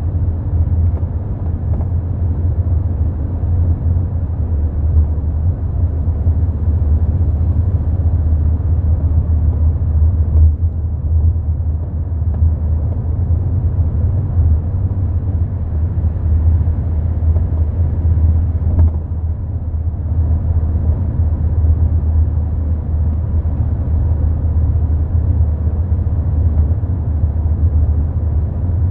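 Mk4 Volkswagen Golf with a bad rear shock absorber, rolling along the road with a steady low rumble from the tyres and suspension.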